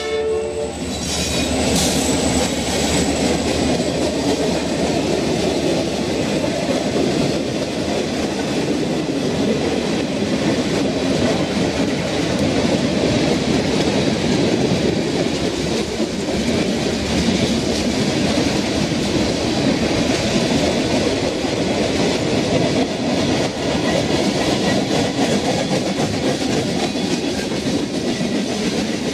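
Freight cars of a passing train rolling by at close range: a steady, loud noise of steel wheels running on the rails. A locomotive horn blast cuts off just as it begins.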